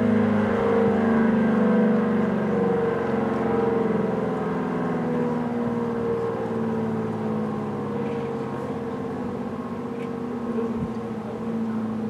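ACA P-10 outdoor warning siren sounding one loud, steady pitched wail that slowly drops in pitch and volume as it winds down.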